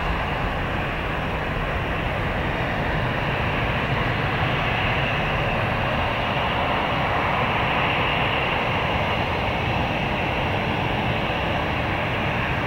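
Airbus A320's IAE V2500 turbofan engines at takeoff thrust: a steady jet roar as the airliner climbs away after takeoff.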